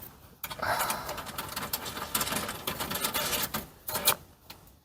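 Rapid clicking and rattling of metal parts as a window regulator is worked into place inside a car door, lasting about three seconds, with a brief last rattle near the end.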